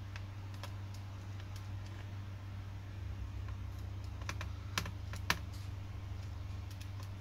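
Light scattered clicks and taps of a small screwdriver and screws against a laptop's bottom panel, with two sharper clicks a little past halfway. A steady low hum runs underneath.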